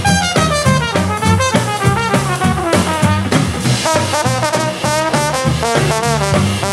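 Live swing band playing an instrumental break between vocal lines, a trombone carrying the lead melody with bending, sliding notes over upright bass and drums.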